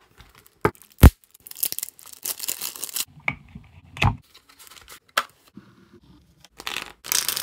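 Bicycle playing cards and their paper tuck box being handled: two sharp taps about a second in, then rustling stretches as the cards are riffled and spread, with a dull thump around four seconds in.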